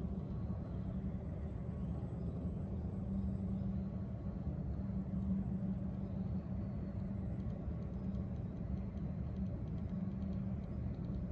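Steady low rumble and hum of a large, high-roofed hall's background, with a constant low tone running through it.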